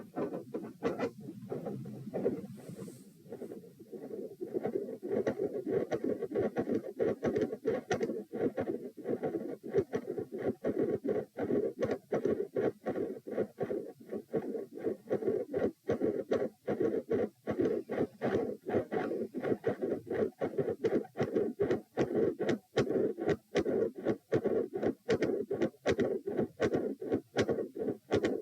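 Human heart sounds recorded at the chest: a regular run of beats with loud, split first and second heart sounds, four sounds to each cycle, and a midsystolic murmur between them. The beats are weaker for the first few seconds, then steady.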